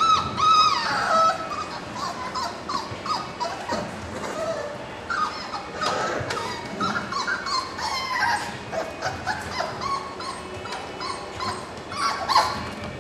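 A litter of four-week-old puppies crying: many short, high-pitched whines and yips, overlapping and repeating, some gliding up or down in pitch.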